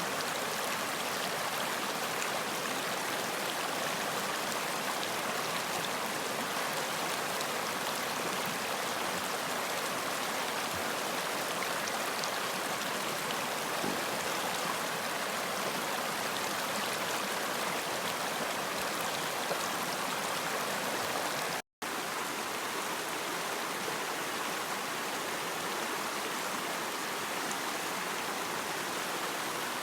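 Running water flowing steadily, an even hiss-like wash of sound that cuts out completely for a split second about two-thirds of the way through.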